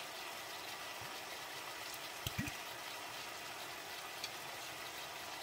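Chicken feet in sauce sizzling and simmering in a frying pan, a steady hiss, with a couple of soft knocks a little over two seconds in.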